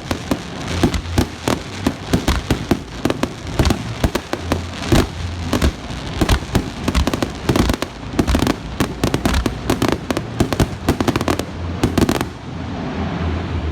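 Fireworks going off in a rapid, dense volley of bangs and crackles, which stops about a second and a half before the end, leaving a steadier background noise.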